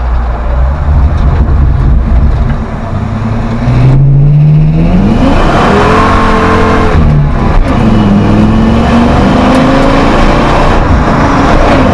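Ford Triton 6.8L V10 running through a 2.5-inch X-pipe exhaust under hard acceleration: the revs climb steeply from about four seconds in, drop back at a gear change near seven seconds, climb again, and drop at another shift near the end.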